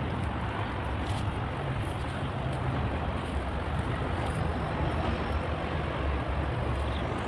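Wind buffeting the microphone: a steady rushing noise with a gusty low rumble that swells and fades.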